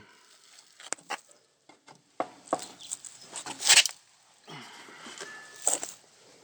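A person moving about: irregular footsteps, scuffs and knocks, the loudest a little under four seconds in, with a short squeak about five seconds in.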